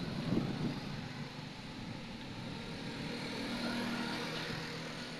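A distant engine hum, steady in pitch, swelling to its loudest about four seconds in and then fading, as a vehicle passes by.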